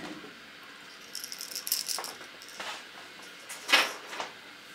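Hard plastic fishing lure and its treble hooks rattling and clicking as they are handled: a quick run of fine rattling about a second in, then a few louder single clicks.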